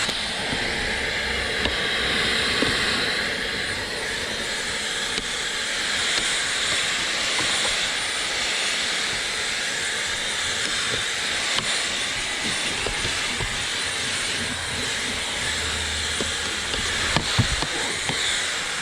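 LG CordZero Kompressor cordless stick vacuum running steadily in handheld mode: a high motor whine over rushing air, with a few sharp clicks near the end.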